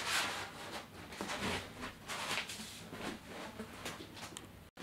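Faint, irregular rustling and handling noises as someone moves about and fetches a sheet of backdrop material. The sound cuts out for an instant near the end.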